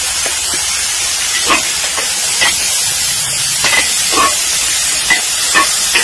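Food sizzling in a large wok over a wood fire, a steady hiss, with the metal spatula scraping against the pan every second or so as it is stirred.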